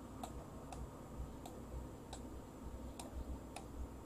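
Faint, sharp clicks of someone working at a computer: six of them, spaced about half a second to a second apart, over a low steady hum.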